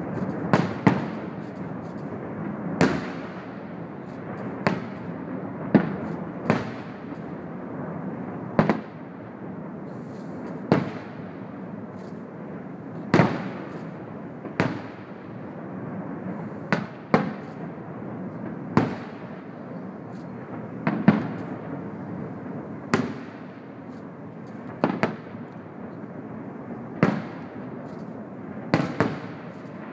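Aerial firework shells bursting one after another, a sharp bang every one to two seconds, over steady background noise.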